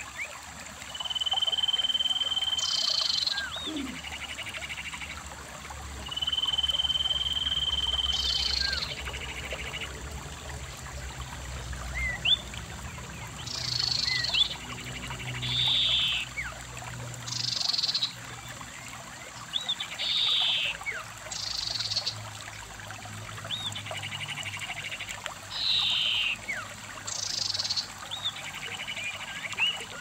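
Shallow stream running over rocks, with animal calls repeating over the water: two long steady trills of about two seconds early on, then shorter calls every couple of seconds, and scattered short chirps.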